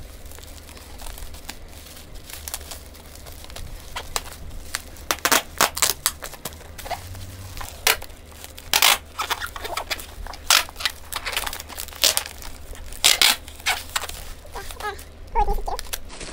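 Brown packing tape being pulled off its roll in short, loud rips and wound round a bubble-wrapped parcel, with the plastic bubble wrap crinkling as it is handled.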